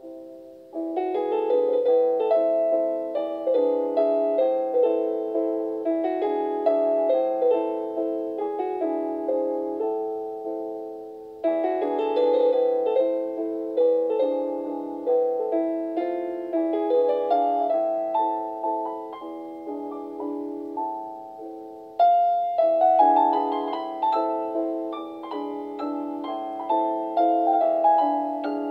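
Calm background piano music, a gentle melody of single fading notes in phrases that begin afresh about every ten seconds.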